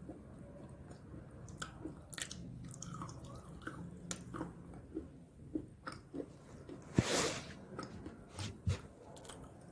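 A person biting and chewing crunchy snack sticks: scattered crisp crackles, with one loud crunch about seven seconds in.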